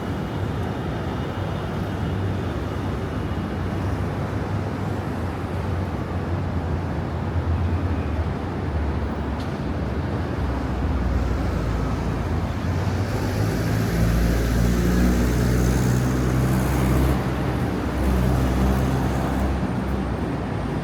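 Street traffic: road vehicles running close by, with a low engine hum that builds about halfway through and is loudest near the end, as from a heavy vehicle such as a bus.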